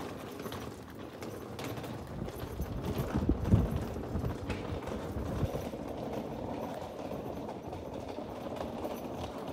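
Rolling suitcase wheels clattering over stone-paved pavement, a steady rattling rumble that is a little louder about three seconds in.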